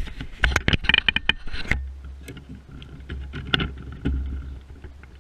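Rapid clattering and knocking from a Tamiya Madcap radio-controlled buggy on coarse asphalt, heard through a camera clamped to its bumper, for the first couple of seconds. Then a low rumble with scattered knocks as the buggy is handled and picked up.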